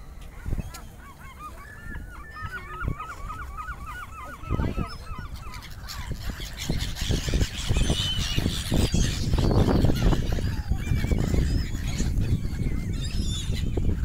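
A flock of gulls calling, first as a fast run of repeated calls, then from about halfway a louder rush of wingbeats and overlapping calls as the flock flies up over the water.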